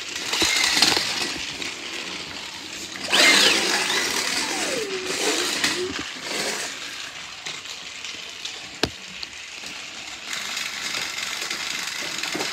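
Small electric motor of a battery-powered toy train whirring steadily along plastic track. A child's high cry slides down in pitch and wavers about three seconds in, and there is one sharp click near the end.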